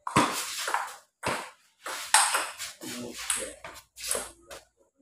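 Table tennis rally: the ball clicking sharply off the bats and bouncing on the table, about ten quick hits in a row with a short echo after each.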